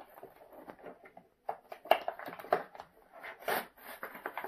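Hands pulling items out of a doll's toy packaging: irregular crinkles, clicks and scrapes, growing louder from about a second and a half in.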